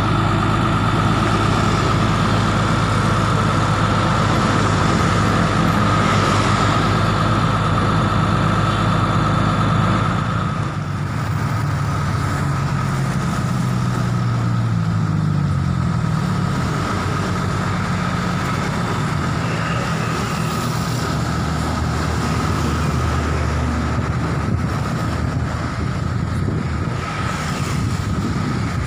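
Diesel engine of a Hino FG 235 Ti crane truck running and driving the HMF 1800 crane's hydraulics while the boom is worked. A thin steady whine sits over the engine until about ten seconds in. Then the engine note drops and shifts, wavering up and down for several seconds as the load changes, and settles into a steady run again.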